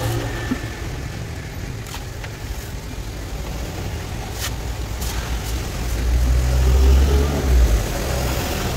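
Meat cleaver chopping and shaving the husk of a young coconut, a few sharp strikes, over a steady low engine-like rumble that swells about six seconds in.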